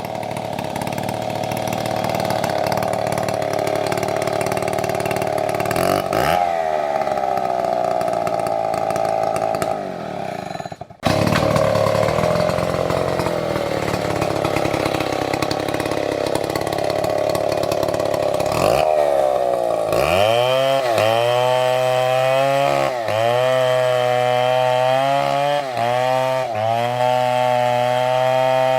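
Big MS720 chainsaw running at high revs, cutting a large tree. In the last third its pitch repeatedly dips and recovers about once a second.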